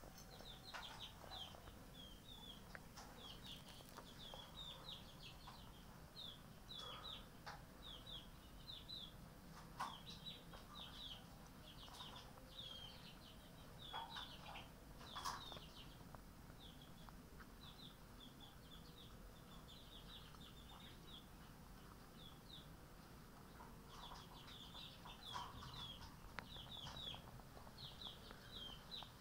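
Cat eating dry kibble from a metal bowl, with scattered faint crunches and clicks and a few louder ones around the middle. Behind it, rapid high bird chirping repeats throughout.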